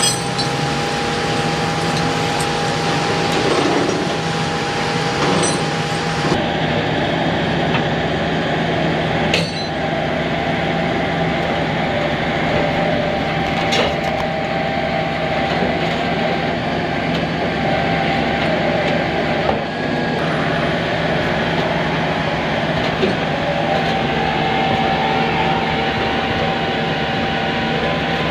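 Steady mechanical drone with a constant whine, broken by a few sharp clinks and knocks.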